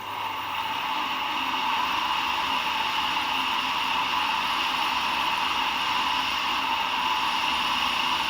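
The failed dryer fan from an LG washer dryer, run outside the machine, gives a steady whirring noise that builds up over the first second or two and then holds. The fan is stiff instead of rotating freely, which is why it is being replaced.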